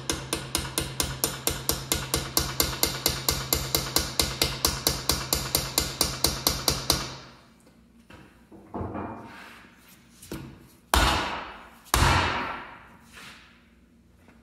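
Hammer rapidly tapping a steel drift punch, about five even strikes a second, to drive the ARB locker carrier and its bearings into a Dana 30 axle housing. The tapping stops about seven seconds in, followed by a few scattered metal knocks, two of them loud.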